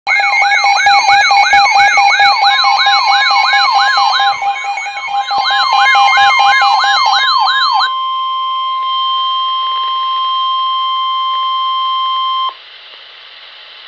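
Layered electronic siren sounds: rising sweeps about twice a second over a wavering higher wail, a steady tone and a few low thumps. About eight seconds in they give way to NOAA Weather Radio's steady 1050 Hz warning alarm tone, which holds for about four and a half seconds and cuts off, leaving faint radio static.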